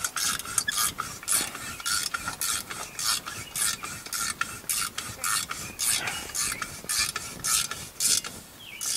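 Ratcheting wrench swung quickly back and forth to run a muffler bolt in by hand. It makes a rhythm of short rasping ratchet strokes, about three a second, which stops just before the end.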